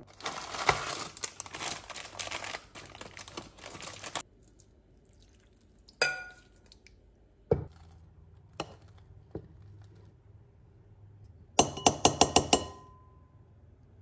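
A silicone spatula clinking and tapping against a glass mixing bowl of whipped cream. It starts with a dense crackling rustle for about four seconds, then gives several separate taps, and ends with a quick run of about seven taps that leave the glass ringing briefly.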